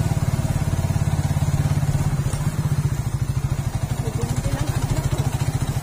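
Suzuki Raider 150 Fi motorcycle's single-cylinder engine running while riding along, a rapid steady low throbbing of its firing strokes that eases slightly in the middle.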